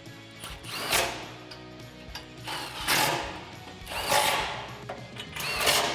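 Milwaukee Fuel cordless ratchet running in four short bursts, about a second or so apart, driving 10 mm bolts home through a swivel socket.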